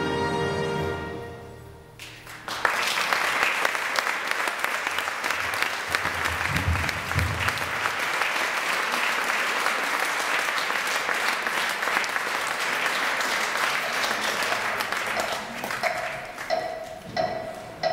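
Recorded music with held tones fades out, and after a short gap an audience in a hall breaks into applause that lasts about thirteen seconds. Near the end the clapping thins and a pulsing tone starts, about two beats a second.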